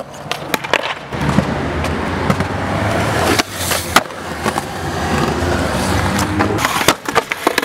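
Skateboard wheels rolling steadily on concrete, with a sharp clack of the tail popping about four seconds in and a few clacks of the board near the end.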